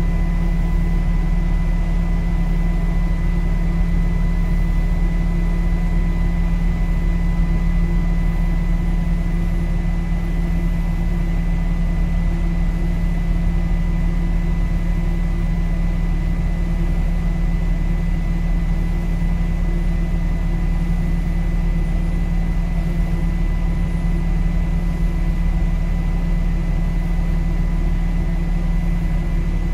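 The 500 CFM fan of an Aero-Clean 850 UV portable HEPA air filtration unit running steadily, heard right at its intake grille: an even, loud hum with a thin, steady high whine over it.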